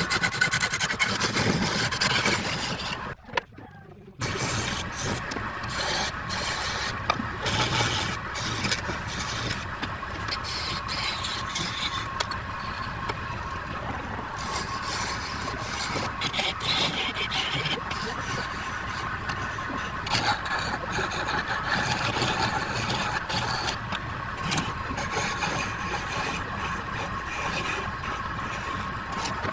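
Wood lathe running while a turning tool cuts and scrapes the spinning wood, a steady motor hum under rough scraping. There is a brief break about three seconds in.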